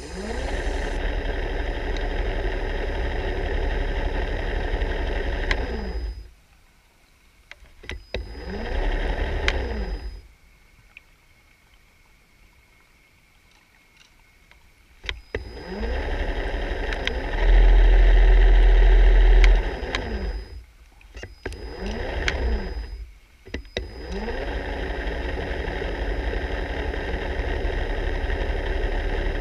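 Underwater scooter (diver propulsion vehicle) motor whirring steadily, cutting off and restarting several times with its pitch sweeping at each start, with a louder low rumble for about two seconds in the middle.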